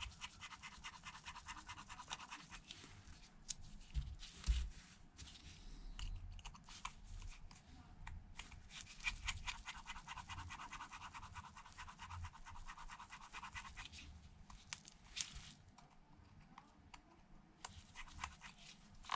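Precision pentalobe screwdriver turning out the tiny bottom screws of an iPhone 11 Pro Max: a faint, fine scratchy clicking of the bit in the screw heads. There are a couple of light knocks about four seconds in.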